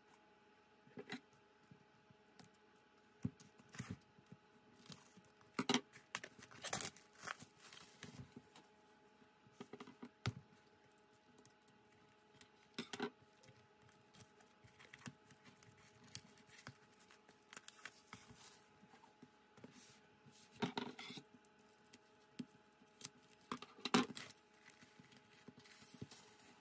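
Plastic shrink wrap being cut and peeled off an album, crinkling in short bursts, among the taps and knocks of hardcover album cases being handled and set down on a table.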